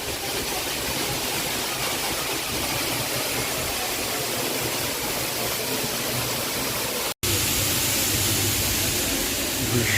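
Waterfall's rushing water, a steady noise. It cuts out for an instant about seven seconds in and comes back a little louder and deeper.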